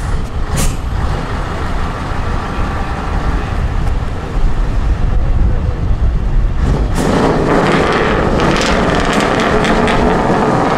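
Scania V8 truck engine running through straight open exhaust stacks as the truck pulls away, getting louder about four seconds in and louder and fuller again from about seven seconds in.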